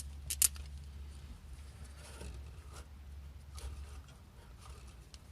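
Small parts and tools being handled: a sharp double click about half a second in, then faint scattered clicks and rubbing over a low steady hum.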